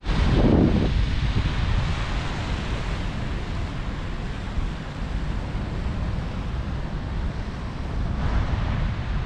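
Wind buffeting the microphone: a steady low rumble and rush, with a stronger gust about half a second in.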